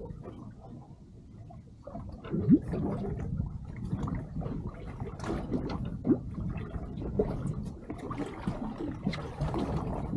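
Water sloshing and gurgling against the hull of a small drifting fishing boat, with scattered small knocks and splashes.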